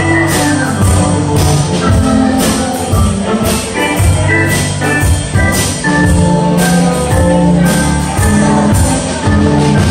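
Live contra dance music: fiddle and keyboard playing a tune over a steady percussion beat.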